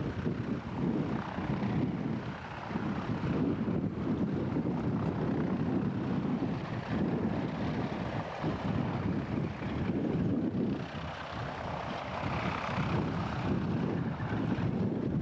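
Piston-engine propeller aircraft running, heard through heavy wind rumble on the microphone.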